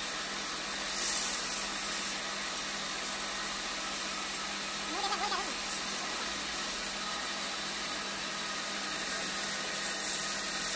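Wood lathe running with a steady hum while a chisel cuts into a spinning wooden spindle, giving a continuous hiss. About halfway through, a short wavering call sounds over it.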